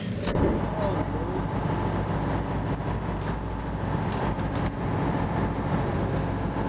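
Boat engine running steadily while the boat is under way, a loud low rumble with the rush of wind and water over it; it comes up suddenly at the start.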